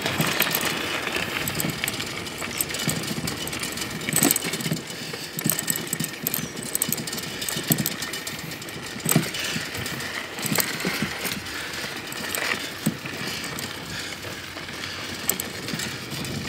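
Bicycle ridden over a rough gravel dirt road: steady tyre noise on the gravel with irregular knocks and rattles as the bike jolts over bumps.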